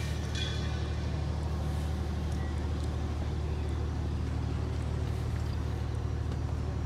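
A steady low engine hum that keeps one even pitch and loudness throughout.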